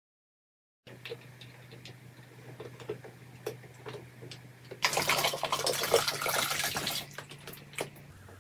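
Faint clicks and crinkles of a plastic water bottle being handled, then water pouring out of it for about two seconds and stopping.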